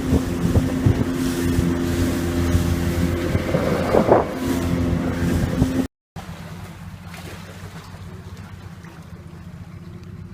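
A motorboat's engine running steadily with wind on the microphone. About six seconds in, the sound cuts out briefly and a quieter steady low rumble follows.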